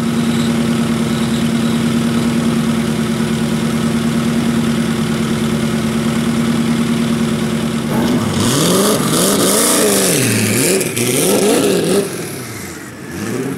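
Heavily modified 1800-horsepower Ford GT's V8 idling steadily, then revved in several quick blips, the pitch rising and falling, about eight seconds in, before settling lower near the end.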